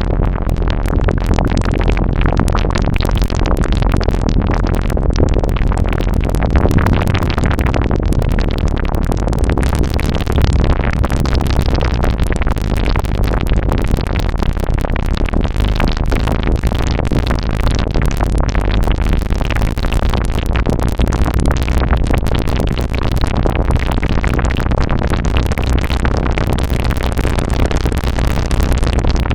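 Serge modular synthesizer (Random Source Serge DUSG and SSG modules) patched to imitate liquid: a dense stream of rapid short blips and clicks at a steady level, over a constant low drone.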